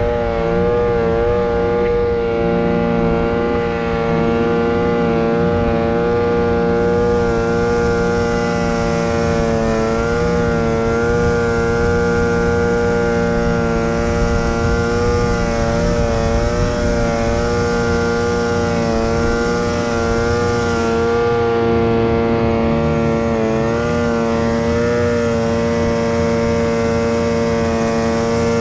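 Snowmobile engine running at a steady high speed while riding, its pitch holding level with small wavers.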